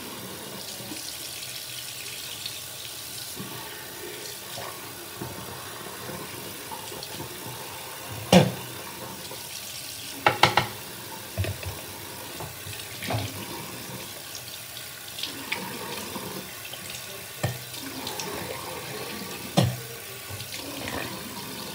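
A bathroom tap running steadily into the sink, with a scattering of sharp knocks and clatters over it. The loudest knock comes about eight seconds in, and a quick cluster follows a couple of seconds later.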